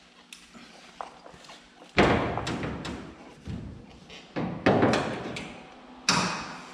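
A sheet-steel wheel arch repair panel being clamped and pressed against a pickup's bed side, knocking against the metal with a short ringing rattle. There are three loud knocks, about two, four and a half and six seconds in, with lighter taps between.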